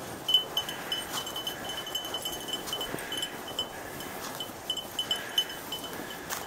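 Small metal jingling from a trotting dog's collar and harness: short high pings at one pitch, several a second in an uneven rhythm, over a soft steady hiss.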